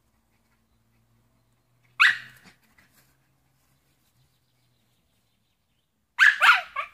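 Shiba Inu barking for a landing net held out of its reach: one sharp bark about two seconds in, then a quick run of about three barks near the end.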